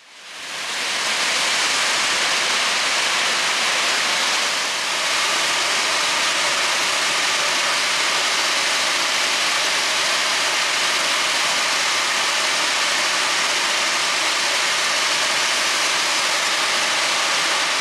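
Iron ore pellets pouring down steel ore dock chutes into a lake freighter's cargo hold: a steady rushing hiss that fades in over the first second and fades out near the end.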